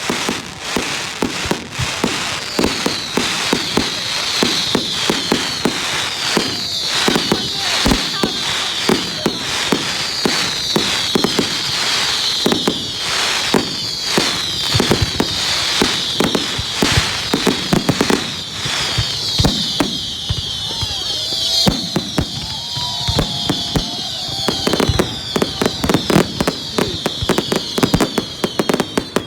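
Fireworks going off in rapid succession, a dense run of bangs and crackles. Over it a continuous high-pitched whistling, made of many short repeated sliding strokes, starts about two seconds in and runs on.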